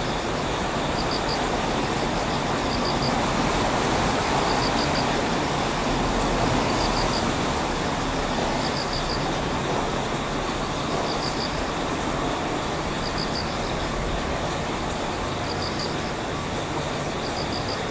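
Steady rumbling running noise of an approaching JR Freight EH200 electric locomotive, swelling a little partway through. A faint high triple chirp repeats about every two seconds over it.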